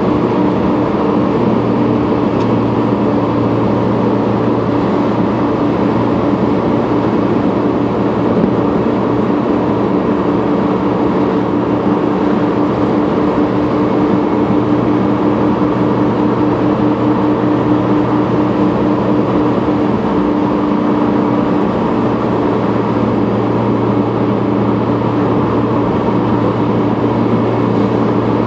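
Steady engine hum and tyre noise heard from inside a moving car's cabin.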